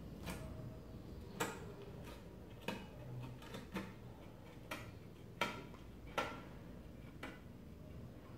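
Hand metal snips cutting a thin metal sheet: about ten short, sharp snips at uneven intervals, roughly one a second or a little faster.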